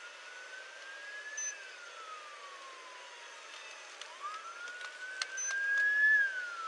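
Emergency-vehicle siren wailing: two slow rises and falls in pitch, the second louder than the first.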